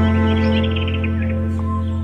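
Slow background music with long held chords, and a quick run of short, bird-like chirps in the first second.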